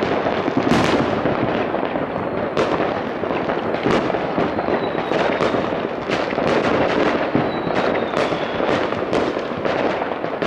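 Many fireworks going off across a town at once: a continuous rumble of distant bangs and crackles, with sharper reports every second or so and a faint high whistle gliding down through the middle.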